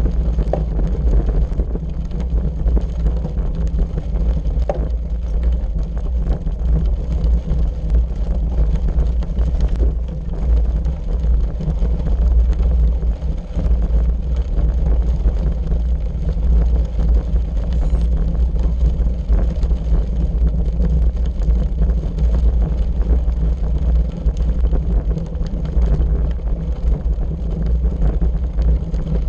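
Bicycle tyres rumbling and crunching steadily over a gravel road, with wind buffeting the microphone.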